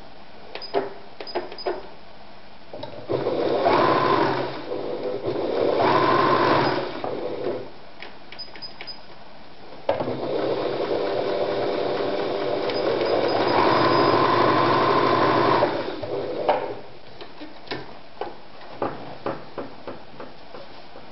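Singer sewing machine stitching fabric in pedal-controlled runs: two short runs, then a longer one of about six seconds, its motor whine rising in pitch as it speeds up. In the pauses and near the end there are short clicks and taps.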